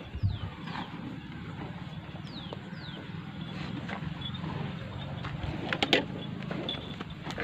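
A cow being milked by hand, with streams of milk squirting into a steel pail. Two pairs of short falling whistles sound at the start and again about two seconds in, and a few sharp clicks come about six seconds in.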